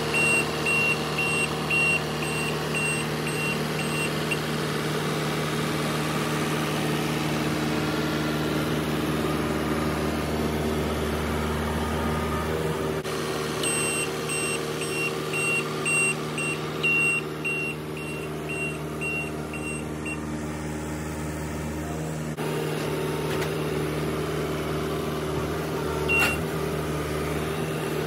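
New Holland L228 skid steer's diesel engine running steadily while its reversing alarm beeps about twice a second, first for a few seconds and again for several seconds from about halfway through. The engine note changes late on, and one last single beep comes near the end.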